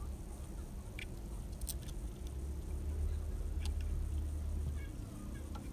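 A few light metallic clicks and taps as clutch springs and bolts are fitted by hand into a Royal Enfield Bullet's clutch pressure plate, over a low rumble that swells in the middle.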